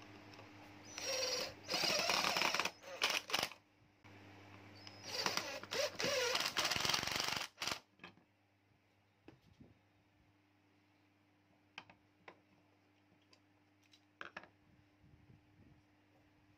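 Cordless drill running in two bursts of a few seconds each, its bit boring into the end of a wooden bar. Then a few light knocks as the wood is handled on the bench.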